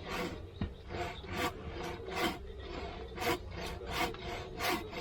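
Repeated rasping strokes of a hand tool working wood, about two a second and uneven in strength.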